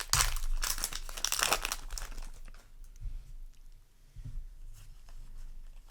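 A foil trading-card booster pack torn open and crinkled, loud for the first couple of seconds, then quieter rustling and handling of the cards.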